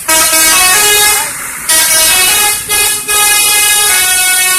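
Indonesian 'telolet' multi-tone bus horn playing a tune: loud, steady notes that step from pitch to pitch, in three or four long blasts with short breaks between them.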